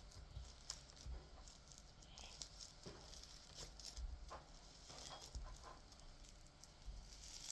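Sticky slime being squished and pulled by hand, making faint, irregular clicks and crackles.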